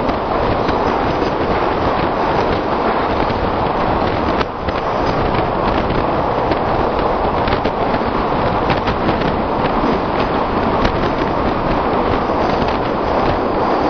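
Express train running at speed: a loud, steady rumble of wheels on rails, with a dense crackle of sharp clicks and a brief dip about four and a half seconds in.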